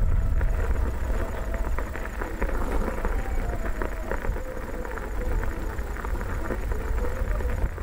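Steady low rumble with scattered rattles and knocks, as from a camera being carried along a rough dirt track on a moving ride or vehicle.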